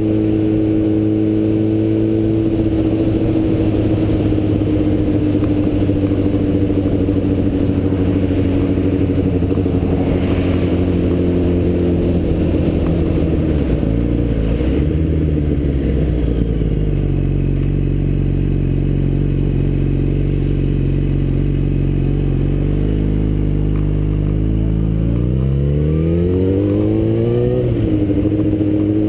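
Yamaha FZ1's inline-four engine running at road speed, with wind noise on the helmet microphone. The engine note eases down through the first half and holds lower and steady for a while. Near the end it climbs as the bike accelerates, with a brief dip at a gear change before climbing again.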